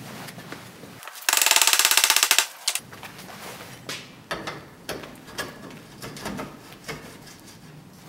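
Saddle and seatpost being fitted to a steel bicycle frame: a loud, fast rattle of clicks lasting about a second, then scattered light knocks and clicks as the parts are handled and set.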